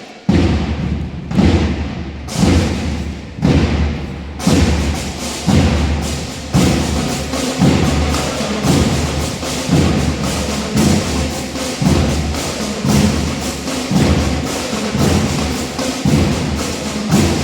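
Two bands playing together, led by percussion: a heavy low drum beat about once a second over busy higher percussion hits. The full band comes in strongly just after the start.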